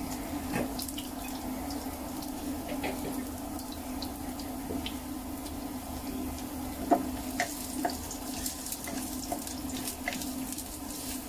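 Garlic and shallot slices frying in oil in a non-stick pot: a steady sizzle with scattered pops and a few clicks of the wooden spoon stirring, over a steady low hum.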